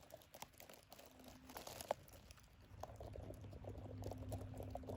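Faint rustling and crackling of bramble and gorse being handled, with scattered small clicks. A low steady hum comes in about three seconds in.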